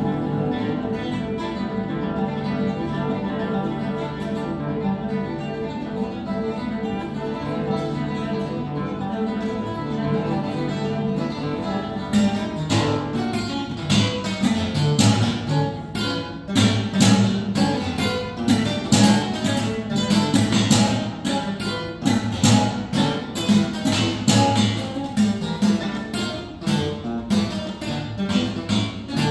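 A quartet of classical guitars playing. For roughly the first twelve seconds the notes are held and ringing. After that comes a dense, uneven scatter of short, sharp plucked notes.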